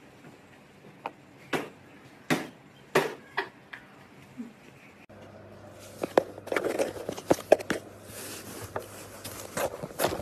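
A few separate sharp knocks in the first half. Then, from about six seconds in, a kitten at a cardboard box makes a dense run of crackling, crunching cardboard sounds.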